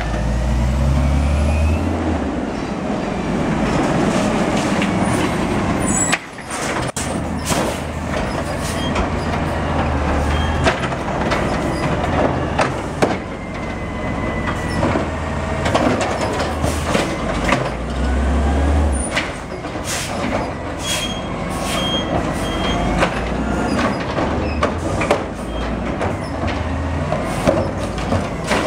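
Automated side-loader garbage trucks collecting curbside carts: the diesel engine runs and revs as the hydraulic arm grabs, lifts and dumps wheeled trash and recycling carts, with repeated clatters and bangs of the carts and falling trash. The sound breaks off briefly about six seconds in and starts again with a second truck.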